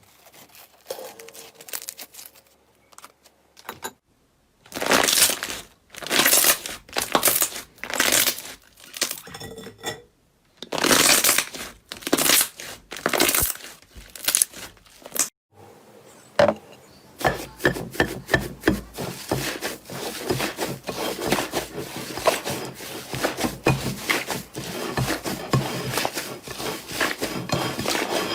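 Slime being squeezed and pressed by hand. First comes a series of loud squishes about once a second, then a steady crackle of many tiny pops and clicks.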